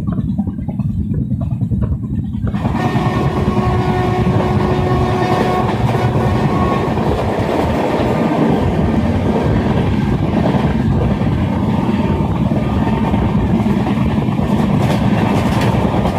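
Train running on the rails: a low rumble for the first couple of seconds, then louder wheel-on-rail clatter as a horn sounds a steady note for about three seconds.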